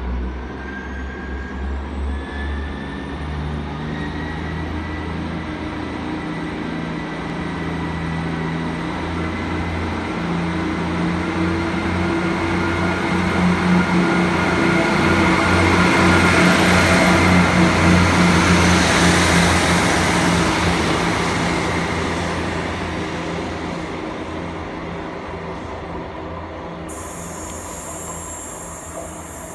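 Class 158 diesel multiple unit pulling away and passing close by, its underfloor diesel engines running under power with a rising whine. It is loudest a little past halfway through, as it goes by, then fades as it draws off.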